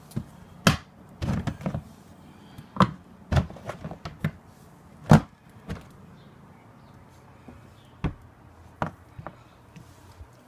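Plastic clacks and knocks from a blue plastic storage tub's lid being handled, unclipped and lifted off: about a dozen sharp, irregular hits, the loudest about five seconds in, fewer after.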